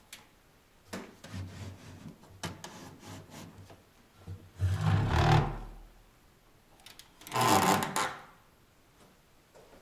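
An old wooden cupboard being handled: a few light knocks, then two louder scrapes about a second long, one near the middle and one about three quarters of the way through, as its doors or drawers are worked.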